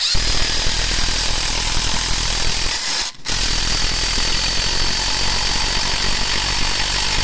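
Parkside PDSSA 20-Li A1 cordless impact driver, a brushed 20 V tool, hammering a long 6 x 200 mm screw into a wooden beam, impacting under load with a steady high motor whine. It stops briefly about three seconds in, then drives again until near the end.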